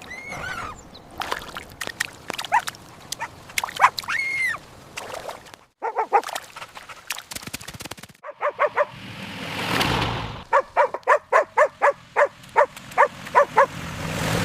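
A dog whining with high, gliding cries, then a rapid run of about a dozen short barks, roughly three a second, in the second half. A brief swell of rushing noise comes just before the barking.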